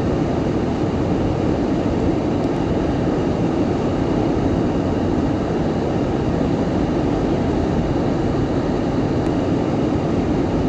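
Steady low rumble inside a moving car's cabin, engine and road noise, even and unbroken.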